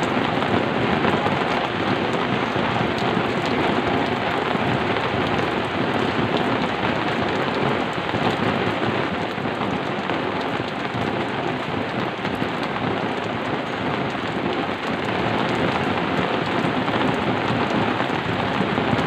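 Rain falling steadily, an even hiss that keeps up without a break.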